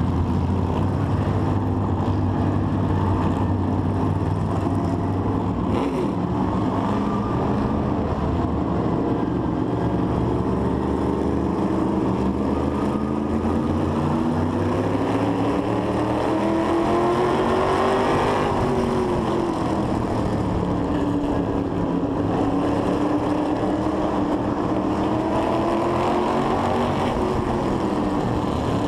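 Onboard sound of an asphalt modified race car's V8 engine running on track. Its pitch climbs steadily to a peak about 18 seconds in, drops off, then climbs again near the end.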